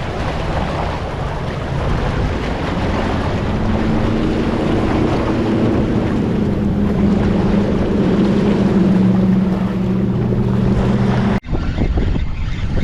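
Wind buffeting the microphone over surf against the jetty, with the steady drone of a passing motorboat engine building from about four seconds in. The sound breaks off abruptly near the end, leaving quieter wind.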